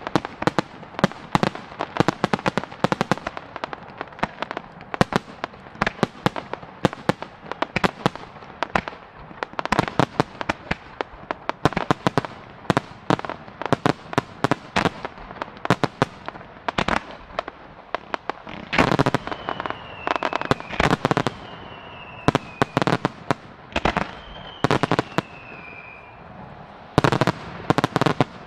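Fireworks finale at close range: a rapid, near-continuous run of shell bursts and crackling. Three falling whistles sound in the second half, and the bursts stop near the end.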